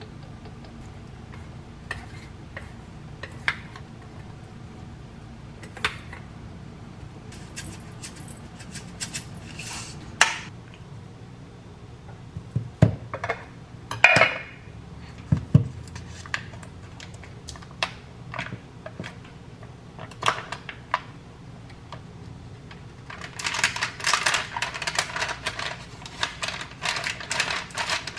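Kitchen handling sounds: scattered clinks and knocks of bowls, bottles and a knife on a cutting board, with a cluster of sharper knocks about halfway through. In the last five seconds comes a dense crinkling as the paper wrapper is peeled off a block of butter. A low steady hum runs underneath.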